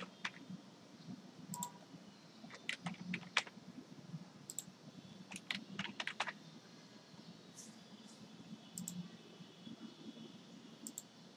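Computer keyboard typing in two short runs of keystrokes, about three and five seconds in, with a few single mouse clicks scattered among them.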